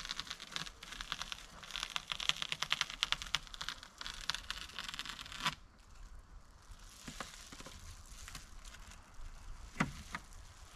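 Double-bubble foil insulation being cut along a straight edge: a fast crackling run of clicks for about five seconds that stops sharply, then a few scattered crinkles and clicks.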